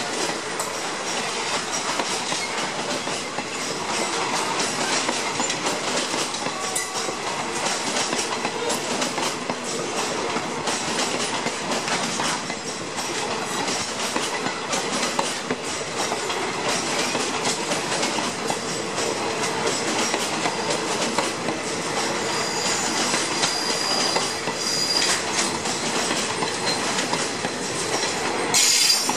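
Passenger coaches rolling past close by: a steady rumble of steel wheels on rails with a rapid clickety-clack of wheels over the rail joints. A thin high wheel squeal sounds for a few seconds later on, and a louder clatter comes just before the end as the last coach goes by.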